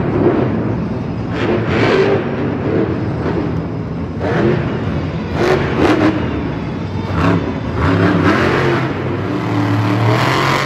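El Toro Loco monster truck's supercharged V8 engine revving hard and easing off again and again as the truck jumps and drives across the dirt track.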